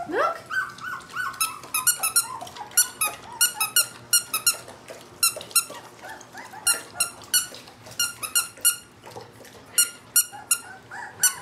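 Young Gerberian Shepsky (German shepherd–husky mix) puppies whimpering and squeaking: many short, high-pitched cries in quick clusters, mixed with longer sliding whines, one rising at the very start.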